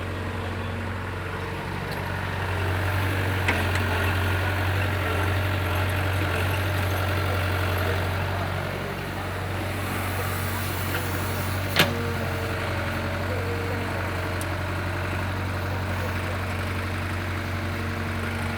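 Excavator engine running steadily with a deep hum, working harder for a few seconds before settling back. A single sharp knock comes about twelve seconds in, with a fainter one earlier.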